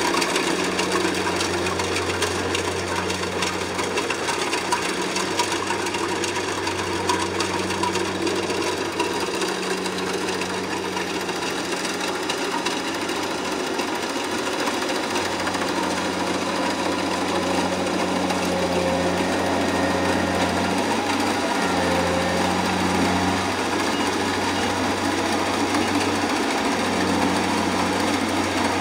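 Kubota combine harvester running steadily: a low engine drone with a mechanical clatter above it. The drone dips briefly a few times.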